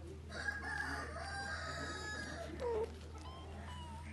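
A rooster crows once, one long call of about two seconds. A short meow follows, then a few thin kitten mews near the end.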